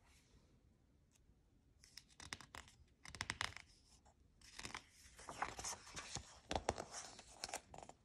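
Paper pages of a picture book rubbing and crinkling as a hand grasps a page and turns it: a run of soft scratchy rustles starting about two seconds in, busiest near the end.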